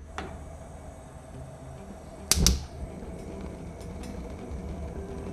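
Gas hob burner being lit: a sharp igniter click, then a loud double snap about two and a half seconds in as the ring catches. After that the lit burner runs with a steady even hiss, and a few faint ticks.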